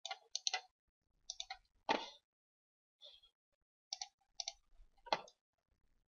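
Computer keyboard and mouse clicks, scattered in small clusters, with two slightly louder clicks about two and five seconds in.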